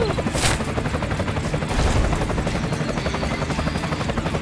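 Small electric motor of a DIY toy construction vehicle running steadily, its gears giving a fast, even rattling buzz, with a brief hiss about half a second in.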